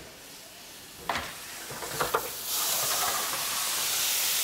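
A few light knocks and scrapes of a wooden baker's peel working at a deck oven, one about a second in and two close together near two seconds. A steady high hiss then sets in at about halfway and holds.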